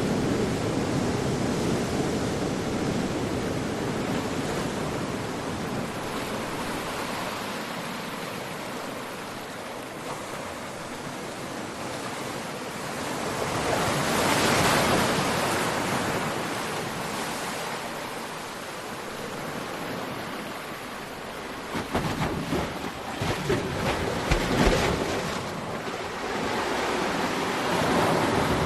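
Ocean waves washing onto a shore, a continuous hiss that swells into a louder breaking wave about halfway through. Near the end, irregular gusty bumps of wind on the microphone.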